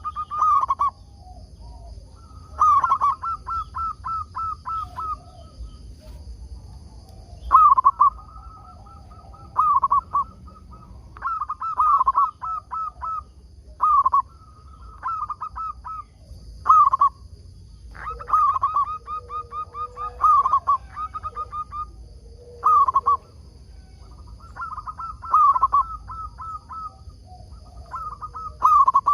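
Zebra dove (perkutut) song: about fifteen phrases of quick staccato coos, each a second or two long and separated by short pauses, over a faint steady high-pitched whine.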